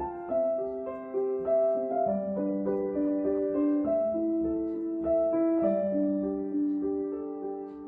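Piano music: a slow melody of held notes over lower notes, a few notes a second.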